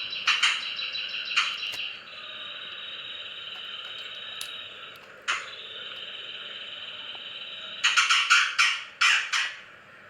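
A pet songbird giving its harsh, rasping chatter call (cekrekan): a long buzzing rattle, then a run of short rapid rasping bursts near the end. The call sounds rough, which the owner takes as a sign that the bird, under treatment for a cough, is still not healthy.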